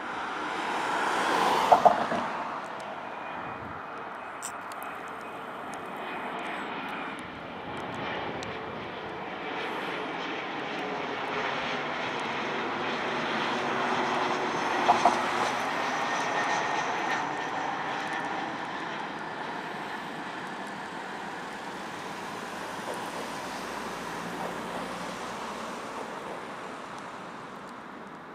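Bombardier CRJ900 regional jet on landing approach, its two rear-mounted GE CF34 turbofans giving a steady jet rumble with a thin whine. The sound swells as the jet passes close by and fades as it lands. A pair of sharp clicks cuts in about two seconds in, and again around fifteen seconds.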